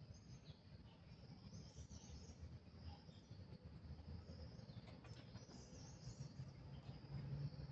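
Faint forest ambience: a steady high insect buzz with a few bird chirps over a low rumble.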